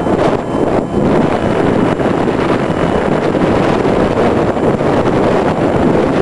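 Airflow rushing over the onboard camera's microphone on a Multiplex EasyStar RC plane in flight: a loud, steady rush of wind.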